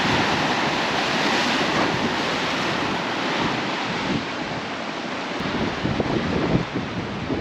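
Ocean surf surging and washing, with wind buffeting the microphone; the rush swells in the first couple of seconds, then eases, with a few gusty thumps near the end.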